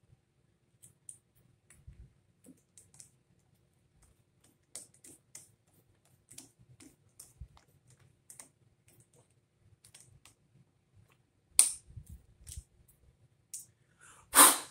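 Faint, scattered clicks and ticks of hand tools being worked and set down on a bench. Near the end come two sharp, loud snaps about three seconds apart; the second comes as a one-handed bar clamp is being worked.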